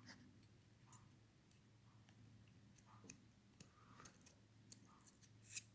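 Near silence with a few faint, scattered clicks of small metal padlock parts being handled, the loudest near the end.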